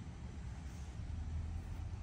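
Heavy truck's diesel engine idling, a steady low drone with no change in speed.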